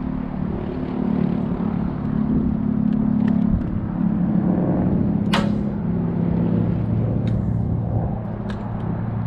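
Small boat motor running steadily at low speed, its hum dropping in pitch twice as the speed is eased back. A single sharp click about five seconds in.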